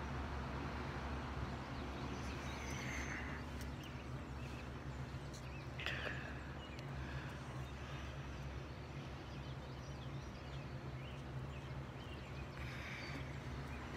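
Early-morning outdoor ambience: a steady low hum under a faint hiss, with a few short bird chirps about three seconds in, around six seconds and near the end.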